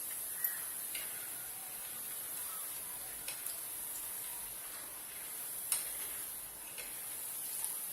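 Shakkar para (sweet dough pieces) deep-frying in hot oil, a steady sizzle, with a few light clicks scattered through, like a spoon touching the pan.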